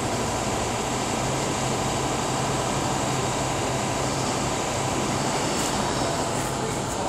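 A steady low machine hum held at one pitch under an even rushing noise.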